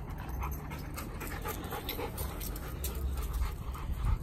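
A dog panting hard from play, with scattered short clicks and scuffs.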